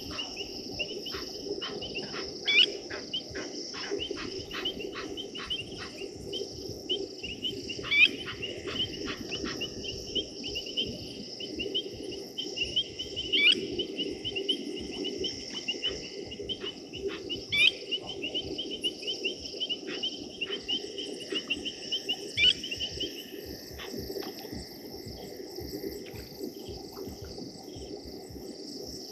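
Crickets trilling steadily through the night. Over them come groups of sharp, metallic clinking calls from blacksmith lapwings alarmed by a snake, and a louder rising call about every five seconds.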